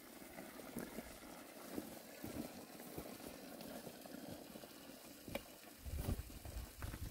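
Faint outdoor background noise with a few soft knocks, and a low rumble starting near the end.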